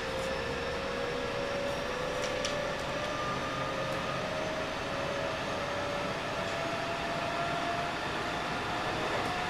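Interior running sound of a JR West 207 series 1000 electric commuter train: steady rumble of wheels on rail under a motor whine from the Toshiba VVVF-driven traction motors, rising slowly in pitch as the train gains speed.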